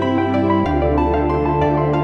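Background music: sustained chords over a low bass note that changes about half a second in.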